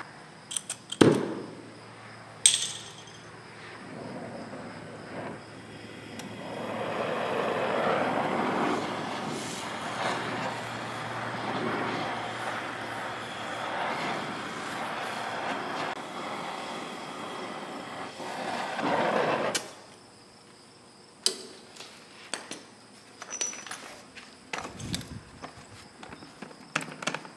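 Belt-driven Quincy 325 shop air compressor running, a steady hum under a fluctuating churn, until it shuts off abruptly about 20 seconds in. A sharp knock comes about a second in, and a few light metallic clicks and knocks follow the shutoff.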